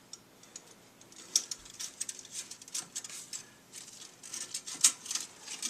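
A busy run of small sharp clicks, rattles and rustles, as of parts and tools being handled, starting about a second in, with a louder click about a second and a half in and another near the end.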